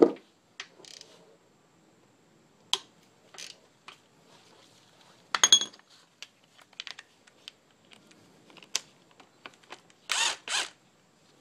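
Scattered clinks and knocks of metal engine parts and chain being handled, then near the end two short whirs of a cordless power tool on the balance-shaft idler sprocket bolt of a Saab B235 engine, loosening it.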